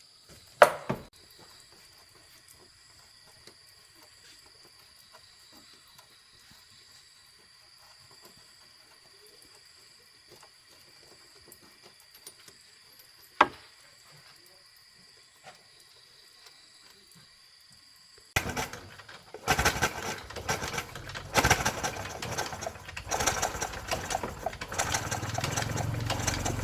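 Mostly quiet with two sharp clicks, then about 18 seconds in a small engine starts up and runs loud and uneven.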